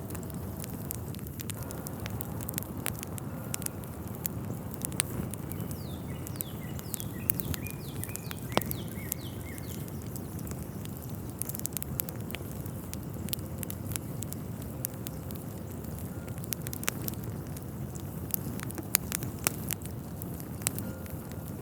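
Outdoor nature ambience: irregular sharp crackles and ticks over a steady low rumble, with faint chirps about a third of the way in.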